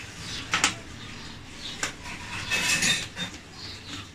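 Small metal clicks and a short scraping clink from a Phillips screwdriver backing out the screws that hold a laptop display panel to its metal side brackets. Two sharp clicks come about half a second and about two seconds in, with a longer scraping clink around three seconds.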